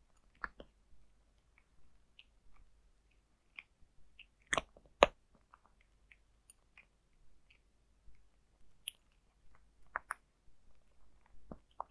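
A cat crunching dry kibble from a bowl: irregular sharp crunches and clicks, the loudest two close together about halfway through.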